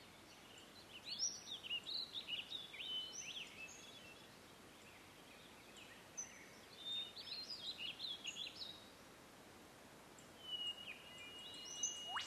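Faint high chirping and twittering in two short clusters, followed by a held high whistle near the end.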